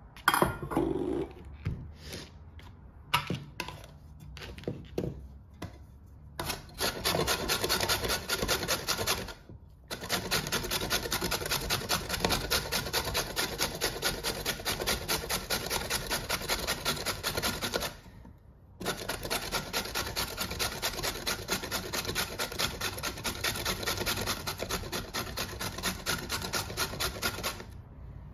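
A peeled carrot grated on a flat stainless-steel hand grater: a long run of fast, even rasping strokes, broken by two short pauses. Before the grating starts, a few knocks and clicks as a bowl and the grater are handled.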